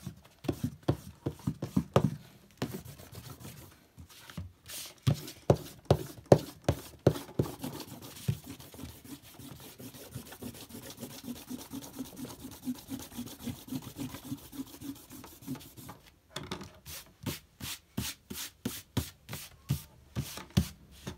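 An eraser rubbing back and forth over drawing paper in quick, brisk strokes, erasing the pencil underdrawing from an inked drawing. The strokes are separate at first, run together into steady rubbing through the middle, pause briefly near the end, and then start again.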